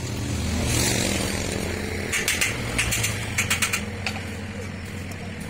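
A power tool rattling in two short bursts, the second lasting about a second, over a steady low hum.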